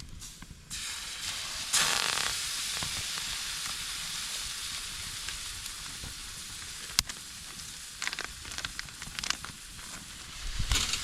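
Food sizzling in a hot pan. The sizzle jumps up about two seconds in, then settles into a steady hiss with a few clicks and pops.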